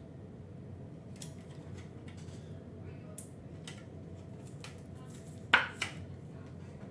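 Handling of trading cards and a clear plastic card holder: soft rustles and small clicks, with two sharp plastic clicks a fraction of a second apart about five and a half seconds in.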